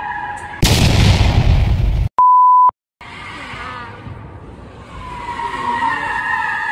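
Tires of a Ford F-150 Lightning electric pickup squealing as it turns hard on a smooth concrete floor. The squeal is cut off by an edited-in loud burst of noise and then a half-second censor bleep. Tire squeal comes back about two seconds after the bleep and grows louder toward the end.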